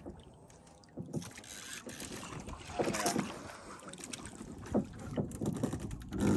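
Wind buffeting the microphone over water lapping against a small outrigger boat's hull, with a few short knocks and a stronger gusting stretch about three seconds in.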